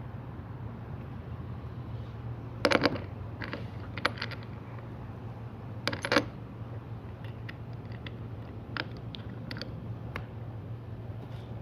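Small steel bolts, nuts and hold-down parts clinking and knocking against the metal table as they are handled, in a few quick clusters about 3 and 6 seconds in with lighter ticks later. A steady low hum runs underneath.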